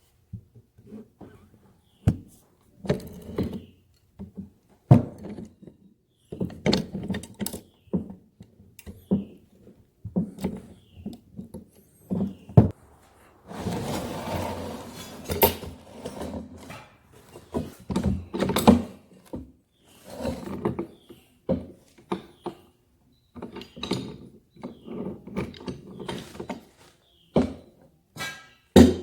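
Metal parts and hand tools being handled while a backhoe hydraulic cylinder is dismantled on a workbench: irregular clunks, knocks and clicks. A longer scraping stretch comes about halfway through.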